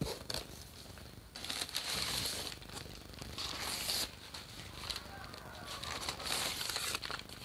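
Packing material rustling and crinkling in several bursts as it is pulled out of a cardboard shipping box.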